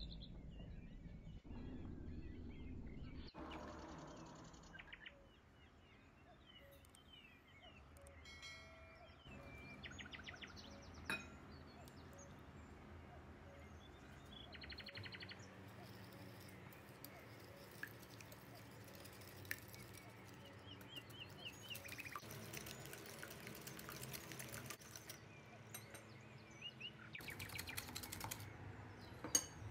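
Faint bird chirps in the background, with scattered small clicks. Near the end, a wire whisk beats eggs and sugar in a glass bowl in quick, rasping strokes.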